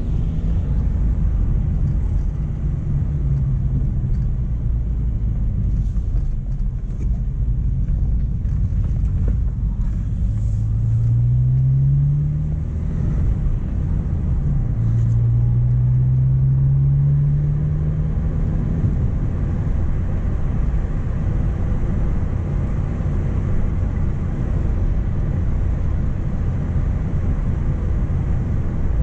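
A Mk1 Renault Clio driving along, with steady engine and road rumble; twice the engine note rises as the car accelerates, about a third of the way in and again a little past halfway.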